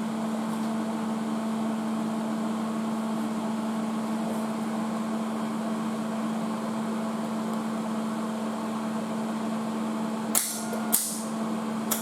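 Steady electrical hum with one steady tone from a welder and shop equipment. Near the end come two short crackling bursts, brief arc strikes made while the shielding gas is still turned off.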